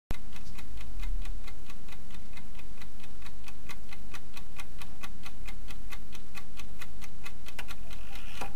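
Rapid, even ticking, about six ticks a second, over a steady low hum.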